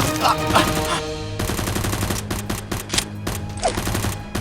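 Rapid gunfire, many quick shots in bursts, over background music.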